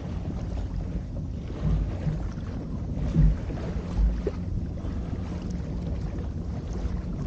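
Wind buffeting the microphone aboard a boat, a steady low rumble with a few short gusts.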